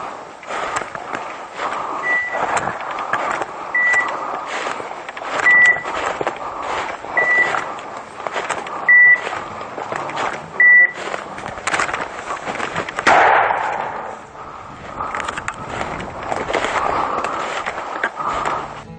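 Footsteps and rustling through dry leaves and brush, with twigs crackling throughout and a louder swell of brushing about thirteen seconds in. Over it, a hunting dog's beeper collar sounds a short, steady, high beep every second and a half or so, six times, stopping about eleven seconds in.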